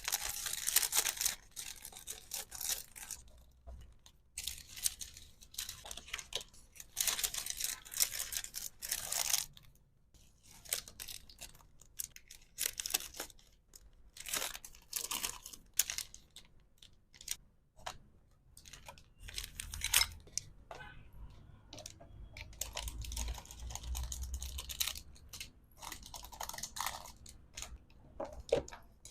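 Packaging material being handled: irregular bursts of tearing and crinkling, some lasting about a second, with small clicks between.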